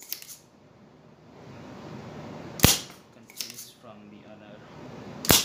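Spring-loaded solder sucker (desoldering pump) firing twice, about two and a half seconds apart, each a sharp snap as the plunger releases to pull molten solder from the pins of a hybrid IC being removed from an air-conditioner control board. Lighter clicks come in between.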